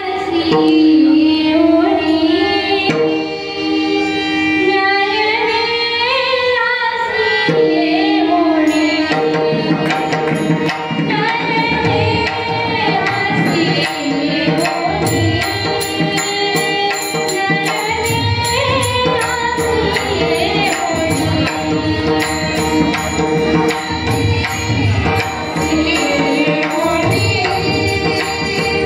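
A Marathi kirtan tune: a voice singing a devotional melody with instrumental accompaniment. Percussion with a steady beat comes in about nine seconds in.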